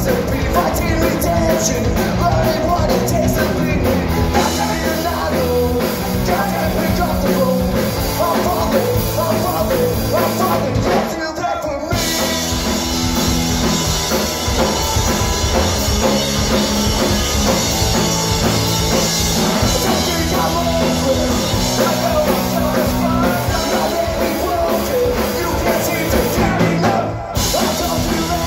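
Rock band playing live and loud: distorted electric guitars, bass guitar and drum kit, with a man singing. The vocal line stands out most in the first ten seconds or so; after a momentary dropout about eleven seconds in, guitars and cymbals fill the top end.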